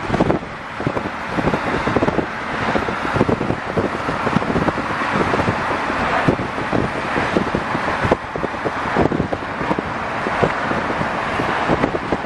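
Wind buffeting the microphone in uneven gusts, a loud rumbling rush with no steady tone.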